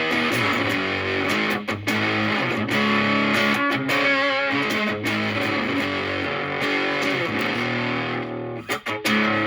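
Stratocaster electric guitar played through a Moollon Fuzz 14 silicon fuzz pedal (a BC108 Fuzz Face type) into a Marshall Valvestate amp. It plays a fuzzy lead line of held notes, with a wavering vibrato about four seconds in and a short break near the end before fresh picked notes.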